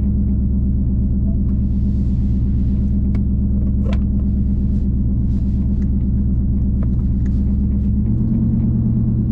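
2019 Ford Mustang GT's 5.0-litre V8 running through Kooks headers and a Borla ATAK cat-back exhaust, a deep, steady rumble. Its tone shifts slightly about eight seconds in.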